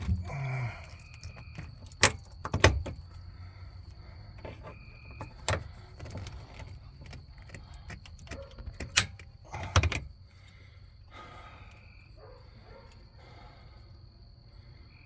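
Hand tools clicking and knocking against metal hose clamps: about six sharp clicks spread over the first ten seconds, then only quiet handling noise.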